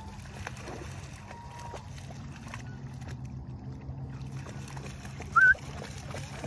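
Dog wading through shallow water, light splashing over a steady low rumble. A single short high chirp about five and a half seconds in is the loudest sound.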